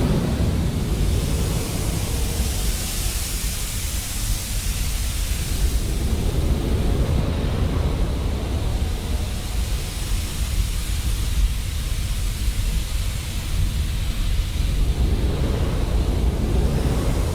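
Flamethrower sound effect: a continuous blast of fire, a heavy deep rumble with the hiss of pressurised gas over it, steady and unbroken with a slight flutter.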